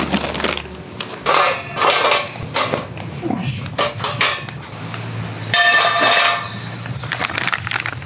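Perforated steel grill plates clanking and scraping against each other as they are fitted over a fire pit. A ringing metal clang comes a little past the middle.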